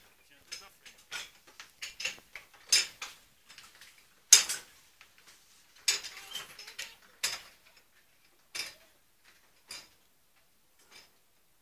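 Irregular sharp clicks and light knocks, some bright and clattering, coming about once a second and growing sparser and fainter toward the end.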